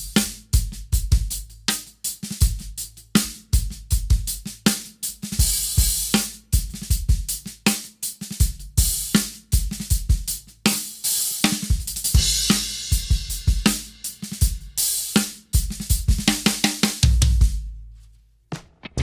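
Full drum kit groove on a Pearl Masters Maple kit: snare, hi-hats and cymbals over a 22-inch bass drum with a thick face mask taped where the beater strikes, so the kick sounds soft with almost no beater click. The playing stops near the end and the ring dies away.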